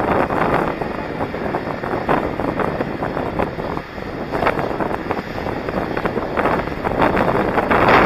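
Wind buffeting the microphone of a moving skater's camera, over the steady rolling rumble of inline skate wheels on asphalt, with irregular small clicks and knocks.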